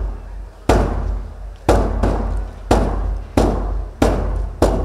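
Large red Vietnamese barrel drum on a wooden stand, beaten with a wooden stick: about six single strikes, roughly one a second and coming faster near the end. Each strike leaves a deep ring that runs on into the next.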